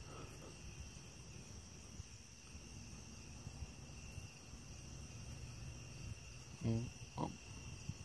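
Steady chorus of night-singing insects: several continuous high-pitched trills held at even pitch. About seven seconds in, two short low voice-like sounds stand out above it.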